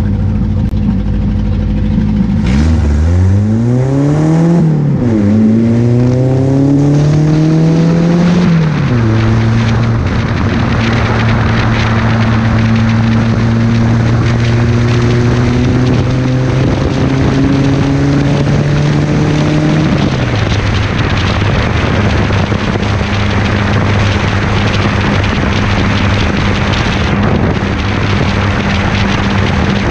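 Engine of a Ferrari Dino replica kit car accelerating through the gears. Its note climbs from about two and a half seconds in and dips at gear changes near five and eight and a half seconds. It then holds a steady, slowly rising note while cruising, drops about twenty seconds in, and runs steadily again over constant wind and road noise.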